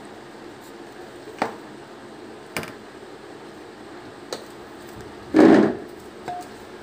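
A wire whisk working in cake batter in a steel bowl, heard as a few separate sharp clicks against the bowl, with one short, loud noisy burst about five and a half seconds in.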